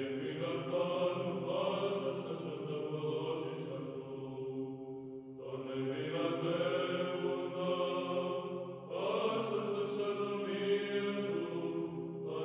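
Background music of slow religious chant: voices holding long sustained notes in three phrases, a new phrase starting about five and a half seconds in and again about nine seconds in.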